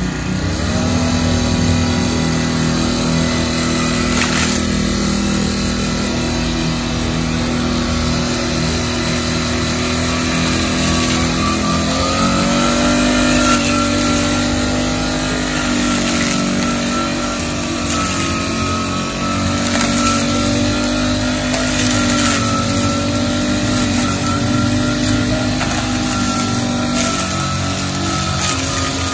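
Small petrol engine of a brush cutter (grass trimmer) running steadily at working throttle, its pitch rising about twelve seconds in and dipping slightly near the end.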